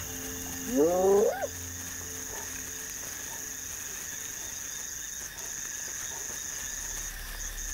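A wild animal's call, rising in pitch, about a second in, over a steady high chirring of night insects.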